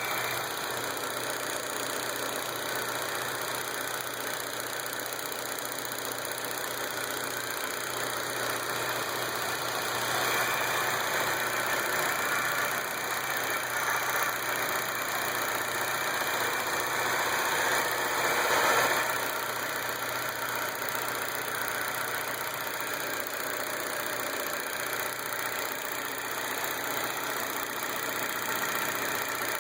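A 2005 Fun's 1.4-litre petrol engine running at an unusually high idle, with a knocking noise like something striking inside; the engine gets louder partway through, then settles back down. The owner does not know the cause of the high revs or the knock.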